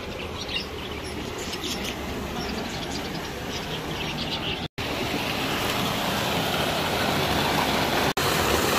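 Caged parakeets chirping over a steady rush of water. After a brief break about halfway through, the rush of water pouring from a stone spout into a basin grows louder and covers the chirps.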